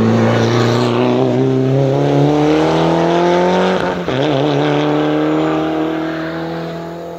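Race car engine at full throttle accelerating uphill out of a hairpin. The pitch rises steadily, breaks and drops briefly about four seconds in for an upshift, then climbs again and fades as the car draws away.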